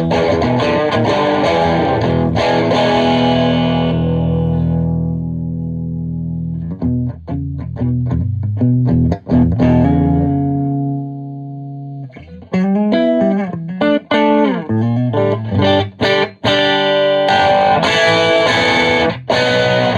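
Overdriven electric guitar played through a Marshall 2203 JCM800 100-watt valve amp head, with a Gibson Les Paul R8. A big chord rings out and fades over several seconds, then a few picked notes and a held note that dies away, and from about halfway a choppy riff with short abrupt stops.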